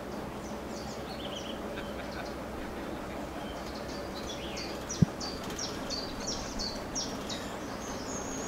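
Birds chirping, short high calls coming more often in the second half, over a steady background hiss. A single low thump about five seconds in.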